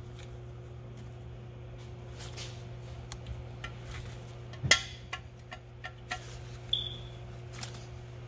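Gloved hands fitting the lower mechanical seal parts into a Flygt 3152 pump's cast-iron seal housing: scattered light metal clicks and taps, one sharper click about halfway through and a brief high squeak a little later, over a steady low hum.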